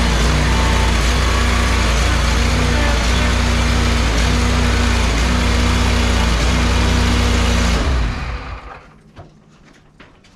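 Tractor engine running steadily close by, then shut off about eight seconds in, the sound dying away within about a second.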